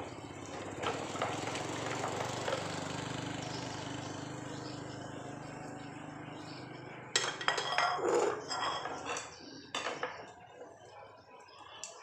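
Dishes and cutlery being handled during hand washing: a steady noise with a low hum for the first several seconds, then sharp clinks and clatters of crockery and metal utensils starting about seven seconds in and thinning out near the end.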